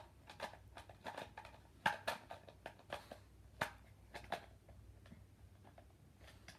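Plastic parts of a Ker Plunk game being handled and fitted together: a string of light clicks and knocks, most of them in the first four or five seconds.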